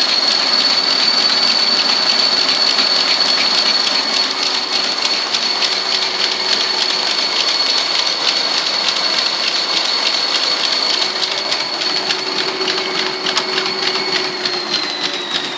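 Treadmill running at speed with a steady high motor whine, over the fast patter of a small dog's paws on the moving belt. Near the end the whine starts to fall in pitch as the treadmill slows down.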